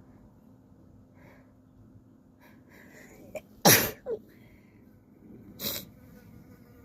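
Two sneezes: a sharp, loud one about three and a half seconds in, and a softer one about two seconds later.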